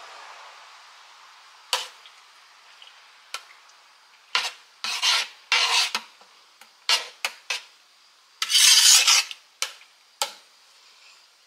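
Kitchen utensils and cookware being handled: sharp knocks and clinks mixed with several rasping scrapes. The longest and loudest scrape comes about nine seconds in.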